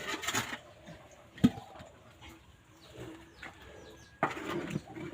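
Doves cooing in low, steady notes, with one sharp knock about a second and a half in.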